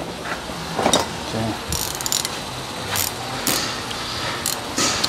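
A hand ratchet clicking in short runs as a rear brake caliper bracket bolt is tightened, with a few separate metallic clicks from tool handling.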